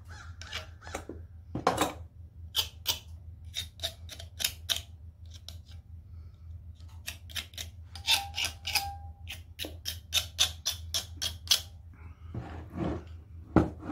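Hand tool working the studs out of an International Type M engine's cast-iron cylinder head: a quick, irregular run of sharp metallic clicks and scrapes. A steady low hum runs underneath.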